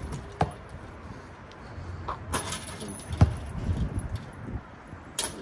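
Basketball thumps during a shooting drill: three separate hits as the ball is passed, caught and bounced on the court. The loudest comes about three seconds in.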